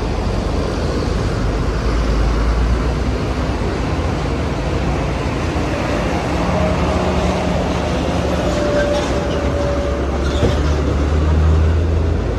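Large buses' diesel engines running as they move through the terminal yard: a steady low rumble that swells near the end as a bus passes close by.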